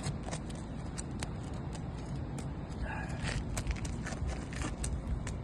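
Irregular sharp clicks and scraping as a snake tool is worked under an asphalt roof shingle to break its seal, the brittle shingle cracking and damaging itself as it is lifted. A steady low rumble runs underneath.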